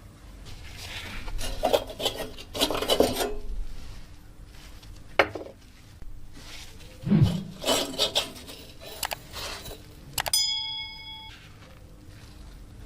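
Parts of an old oil lamp being handled: irregular clinks, knocks and scrapes of hard parts. About ten seconds in, one part is struck and rings clearly for about a second.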